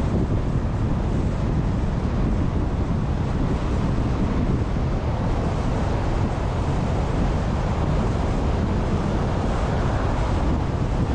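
Steady wind and road noise from a car driving at highway speed: an even rush, heaviest in the low rumble, with no breaks.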